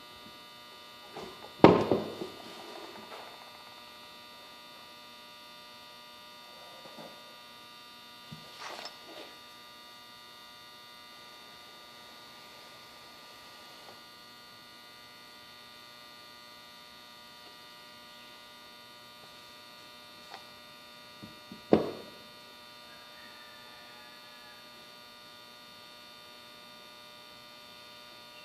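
Steady electrical mains hum, made of several constant tones, with a few short sharp knocks. The loudest knock comes about two seconds in, fainter ones about nine seconds in, and another loud one about 22 seconds in.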